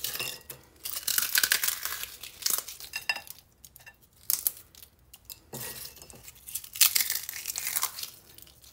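Crisp fried papdi crushed between the fingers and crumbled over the chaat, crackling in two bouts: one at the start and another from a little past halfway until near the end.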